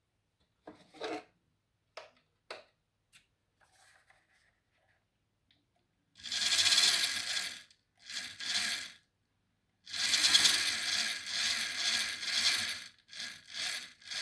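WPL D12 RC truck's 180 motor and gearbox whirring in several throttle bursts of one to three seconds, shorter ones near the end, after a few light clicks. The motor's low-speed buzz is absent: it is filtered out by an added low-ESR capacitor and inductor.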